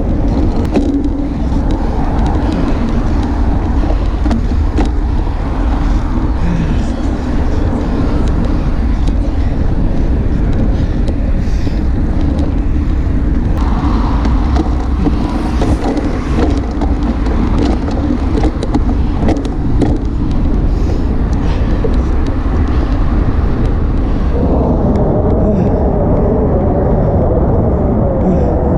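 Wind buffeting the camera microphone on a moving road bike: a loud, steady rumble. A rougher noise joins it about 24 seconds in.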